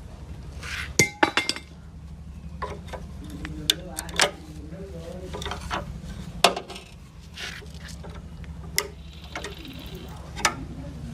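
Small metal parts and hand tools clinking and tapping at irregular intervals over a steady low hum, typical of bench work on a motorcycle.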